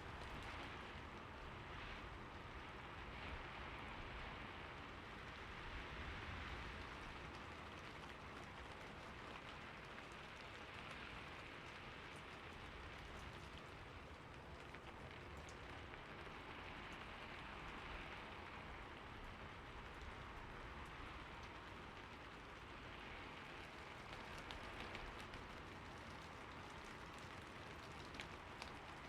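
Steady, soft rain falling, with gentle swells in intensity and scattered raindrops ticking.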